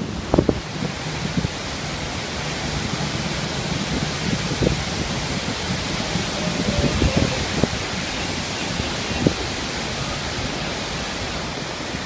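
Steady rushing of Iguazu Falls' cascades and spray close by, with a few short gusts of wind buffeting the phone's microphone.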